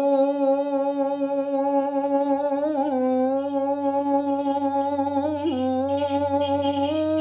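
A single voice holding one long sung note of an Arabic nasheed, drawn out with small steps in pitch about three and five and a half seconds in and a slight rise near the end.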